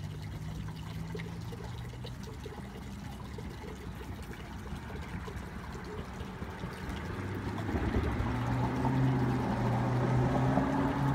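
Water running into a plastic bucket, filling it. A steady low hum comes in louder about eight seconds in.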